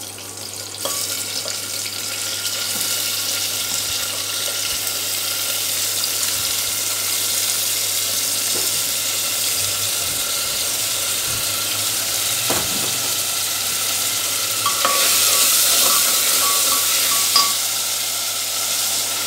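Chopped tomatoes and brinjal sizzling in hot oil with onions in an aluminium pressure cooker: the tempering (vaghar) stage of cooking. About two-thirds of the way through there is a knock, and the sizzle grows louder near the end as a steel ladle stirs the pot.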